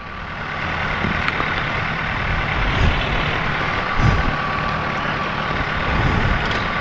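Motorcycle riding off from a stop, its engine mixed with wind rushing over the microphone; the noise rises over the first second and then holds steady.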